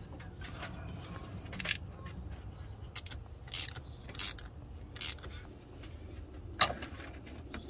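Hand tools clicking and scraping against metal fittings while a rubber coolant hose is fitted in a diesel engine bay: a handful of short sharp ticks spread over a few seconds, and one louder click near the end, over a steady low hum.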